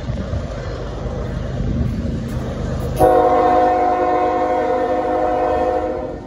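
Locomotive CN 3830, leading a grain train, rumbling low as it approaches; about three seconds in, its air horn sounds one long, loud blast, a chord of several notes, held for about three seconds before cutting off near the end.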